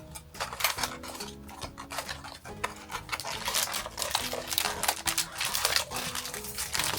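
Light clicks, taps and rustles of blind-box packaging being handled and opened, over quiet background music with a simple melody.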